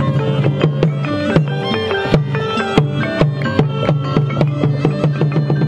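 Khmer pinpeat ensemble music: quick runs of struck melodic notes over a steady low drone, punctuated by frequent sharp drum beats.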